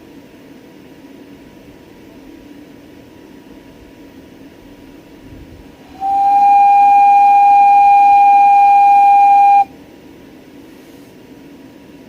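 Steam whistle of a 5-inch gauge live-steam locomotive blown once, one steady loud note of about three and a half seconds that slides up slightly at the start and cuts off sharply.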